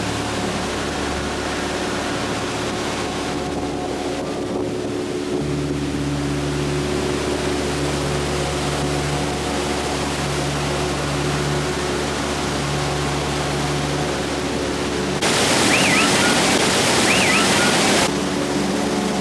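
Steady rush of the Niagara Falls water under held, chord-like drone tones that change every few seconds. About fifteen seconds in, a louder burst of falling-water roar lasts about three seconds, with two short high calls in it.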